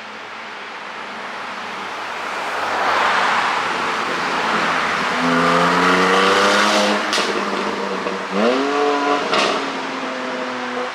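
Porsche 718 Boxster GTS 4.0's flat-six engine under acceleration, building from a rushing noise into an engine note that climbs in pitch, rises again a little past eight seconds and drops near the end. Two sharp exhaust cracks from the pop-and-crackle tune come about seven and nine and a half seconds in.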